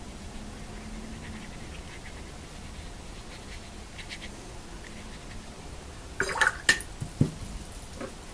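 Paintbrush dabbing and scraping faintly on textured watercolor paper, then a quick cluster of sharp knocks and taps about six to seven seconds in.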